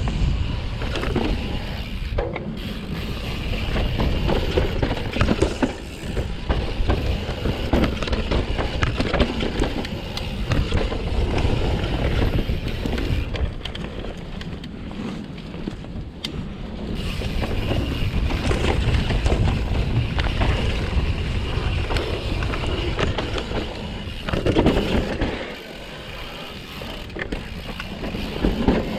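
Mountain bike ridden down a dirt singletrack, its tyres rolling over the ground and the bike clattering and rattling over bumps, with wind noise on the action camera's microphone.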